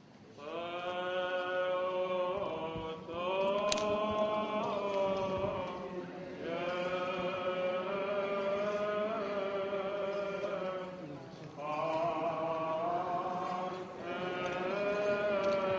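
Greek Orthodox Byzantine chant: a vocal line sung in long held notes with slow ornaments, in five phrases with short breaks between.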